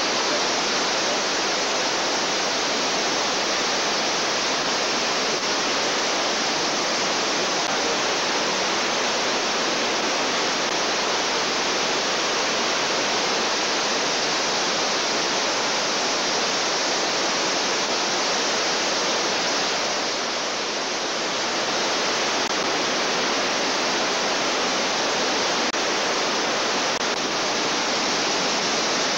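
Fast river rushing over rocks in rapids: a loud, steady rush of white water that eases slightly about twenty seconds in.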